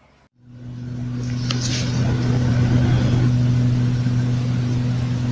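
Low, steady droning hum with a second tone an octave above it, swelling in over about a second and then holding. It is the kind of recording passed around as a mysterious trumpet-like sound from the sky. A short sharp click comes about a second and a half in.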